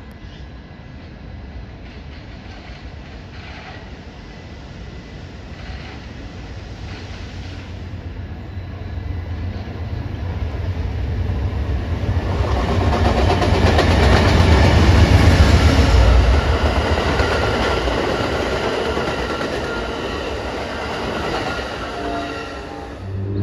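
Amtrak passenger train led by a GE Genesis P42DC diesel locomotive approaching and passing. Its sound builds to its loudest about fifteen seconds in as the locomotive goes by. The bilevel Superliner cars' wheels then clack along the rails, and the sound fades near the end.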